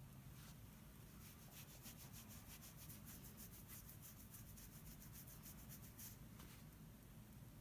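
Fingers scratching a dog's fur on its head: faint, quick rasping strokes, several a second, that thin out near the end.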